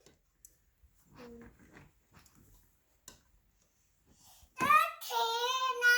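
A child's voice. A short faint sound comes about a second in, then a loud, drawn-out, wavering high-pitched note begins near the end and carries on.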